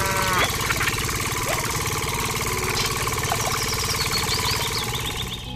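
Small engine running steadily with a fast, even chug, driving a miniature water pump; it fades slightly near the end.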